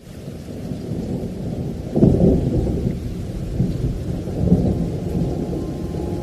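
Thunder rumbling over steady rain, fading in at the start, with a sudden louder peal about two seconds in and further rolls after it.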